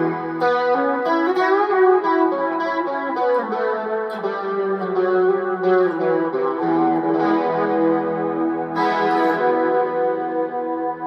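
Electric guitar played through an effects pedalboard with a chorus pedal switched on: a ringing chord, then a run of picked notes, and another strummed chord about nine seconds in, left to ring.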